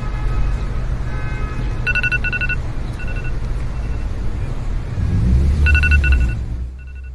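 iPhone alarm ringing in short repeated beeps, starting about two seconds in, with fainter echoing repeats between the louder groups. A deep steady rumble runs beneath, loudest just before the end and then dropping away.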